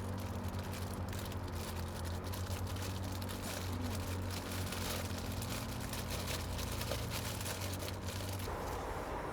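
Dense crackling and sizzling of food cooking over a campfire, under a steady low hum that stops near the end.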